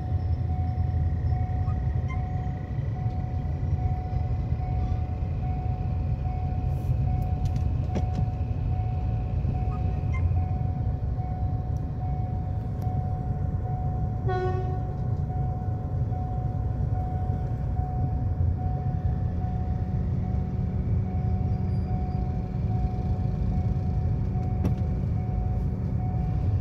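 Passenger train carriages rumbling steadily past over the rails, heard from inside a car waiting at the level crossing, with a steady high tone running throughout. A short horn toot sounds about halfway through.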